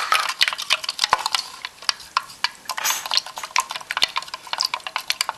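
A wooden stick stirring borax into warm water in a plastic measuring cup, making rapid, irregular clicks and scrapes against the cup's sides and bottom.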